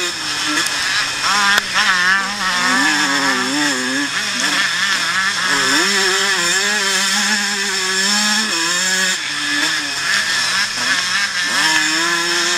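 Engine of a vintage pre-1990 motocross bike racing on the track, its pitch climbing and dropping again and again as the throttle is opened and closed.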